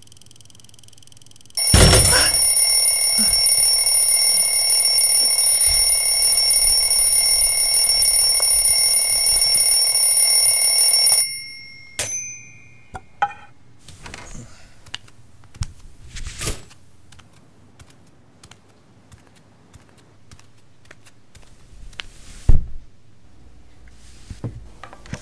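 A loud electric alarm bell rings steadily for about nine seconds, starting suddenly about two seconds in and cutting off abruptly. Scattered clicks and knocks follow, with one loud thunk near the end.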